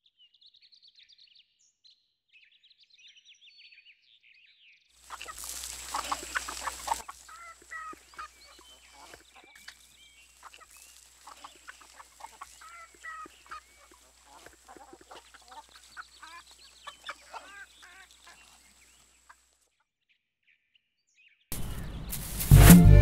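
Chickens clucking and small birds chirping, with a loud two-second burst of noise about five seconds in and a loud, deep sound starting near the end.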